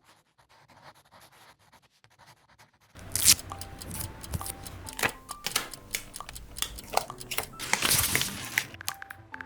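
Stickers peeled off their backing sheets, with crackly peeling, paper rustling and light taps, starting about three seconds in over soft background music.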